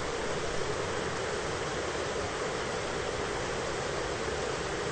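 Steady, even hiss of heavy rain in a thunderstorm recording, with no thunderclaps in this stretch.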